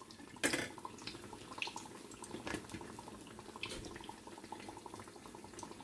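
Besan-battered potato pakoras frying in a shallow pan of hot oil: a faint, steady sizzle and bubbling. A few light clicks are scattered through it, the loudest about half a second in.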